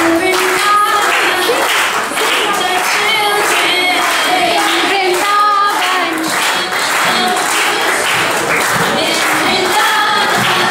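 A song with a group of voices singing over a steady drum beat, played for a dance.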